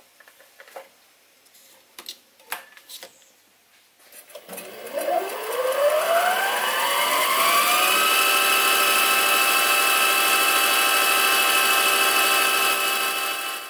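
Sieg SC3 mini lathe starting up after a few faint clicks: its motor whine rises in pitch for about three seconds, then runs at a steady speed while the drill bores a small brass part, and stops just before the end.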